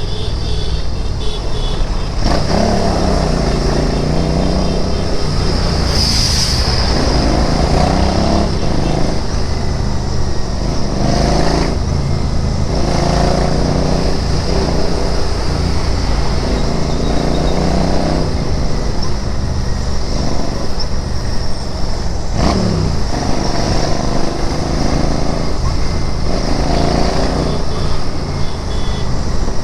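Royal Enfield Interceptor 650's parallel-twin engine pulling through the gears, its revs rising again and again with a short dip at each shift, over a steady rush of wind and road noise.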